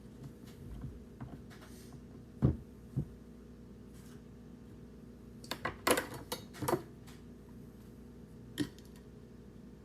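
A few sharp knocks and clicks of objects being handled, with a quick cluster of them around the middle, over a steady low hum.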